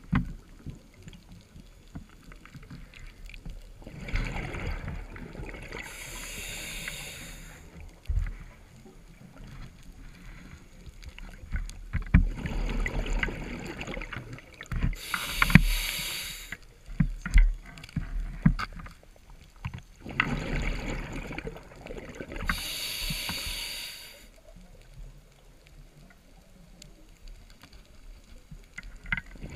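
Scuba diver breathing through a regulator, heard underwater: three slow breath cycles about eight seconds apart, each a bubbling rush of air followed by a high hiss. Scattered small knocks come between the breaths.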